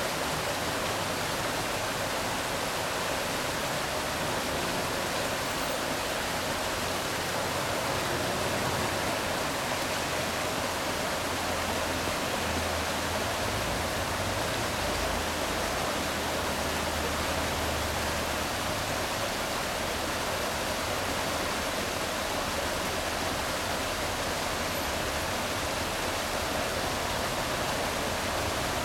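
Water rushing steadily over a low stone weir, a constant hiss of falling white water.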